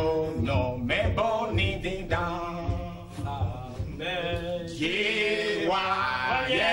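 A group of men singing together without instruments, several voices in harmony.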